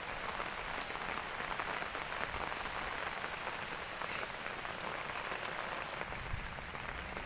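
Heavy rain falling steadily, a dense patter of drops on surfaces, with a brief sharp tick about four seconds in.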